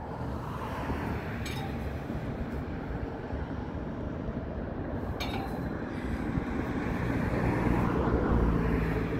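A VIA Rail train approaches as a steady low rumble that grows louder, with a low engine drone building near the end.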